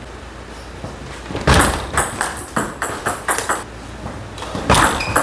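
Table tennis ball clicking in short taps, about three a second, then a serve near the end: the plastic ball struck by the bat and bouncing on the table.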